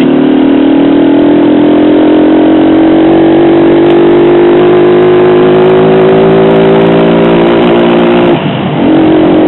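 Honda CG Titan motorcycle's single-cylinder four-stroke engine pulling under way, its pitch slowly rising as the bike gathers speed. Near the end the sound drops out for half a second in an upshift, then runs on at a slightly lower pitch.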